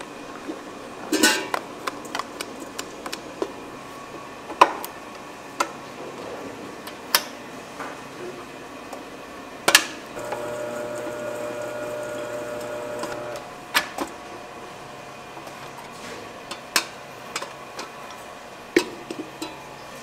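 Handling of a stainless steel stand-mixer bowl and a plastic tub: scattered sharp knocks and clinks, a few seconds apart. About halfway through, a steady hum comes in for about three seconds and then stops.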